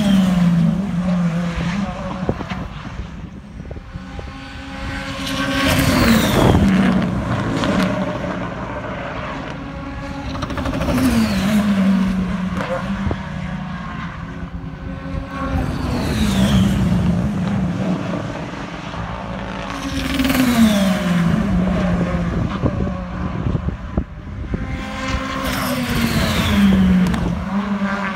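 BTCC touring cars' turbocharged engines passing one after another, about every five seconds, each engine note falling in pitch as the car goes by. Occasional sharp pops from the anti-lag system.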